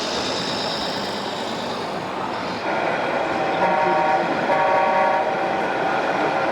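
An RC truck's sound module plays a horn: a chord of several steady tones starts a bit over two seconds in and gives two louder blasts in the middle. Before it, a faint high whine is heard.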